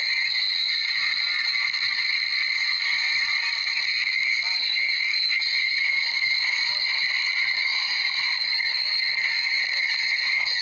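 A huge number of overlaid sneeze sounds merging into one steady, unbroken buzzing drone, with no single sneeze standing out.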